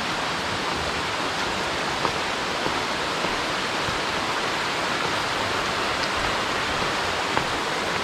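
Mountain stream rushing over rocks: a steady, even rush of flowing water, with a few faint clicks.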